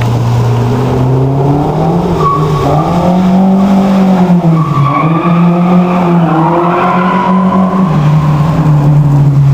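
A drift car sliding through a corner, its engine held at high revs and rising and dipping as the throttle is worked, then dropping off near the end.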